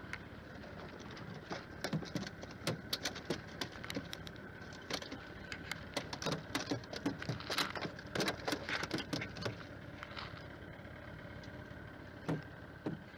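Small fishing boat's engine idling steadily, with a run of sharp knocks and clicks lasting several seconds in the middle as a fish is landed on a hand-line; two more knocks come near the end.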